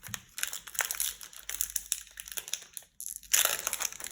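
Crinkling of a trading-card booster pack wrapper being handled, a dense run of quick crackles that stops briefly about three seconds in and then comes back louder.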